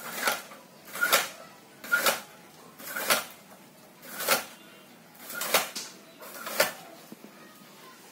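Hand-lever vegetable cutter with a high-carbon steel blade chopping through a bunch of bitter gourds, seven chops at about one a second.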